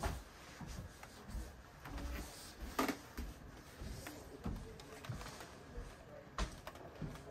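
Quiet indoor room tone with a low uneven rumble and a few scattered sharp knocks, one near the start, one just before the middle and one near the end.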